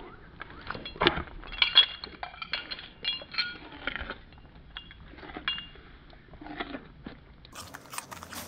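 Dogs crunching raw carrots, a quick run of sharp crunches, mixed with the light clinking of their metal collar tags.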